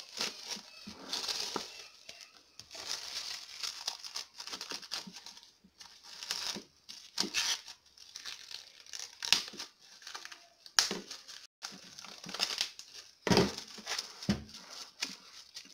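Plastic cling film crinkling as it is pulled from the roll, stretched over a glass bowl and pressed around the rim: irregular crackling with a few sharper snaps.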